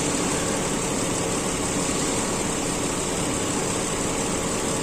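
Toyota Fortuner's six-cylinder engine idling steadily, with the newly fitted alternator charging the battery.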